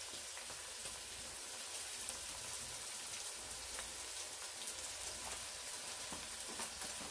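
Chopped onions sizzling in hot oil with cumin seeds as they go into the pot: a steady high hiss with fine crackling, like light rain.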